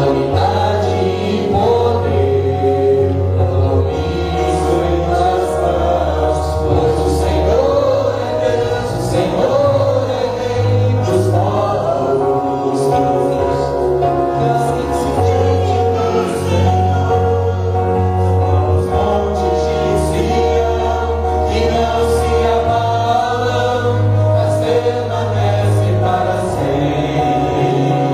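Gospel worship music: a choir singing over sustained bass notes that change every few seconds.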